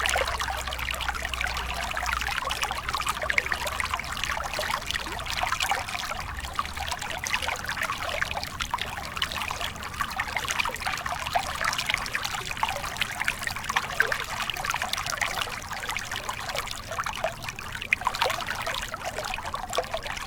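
Small stream flowing with a steady trickling babble of water.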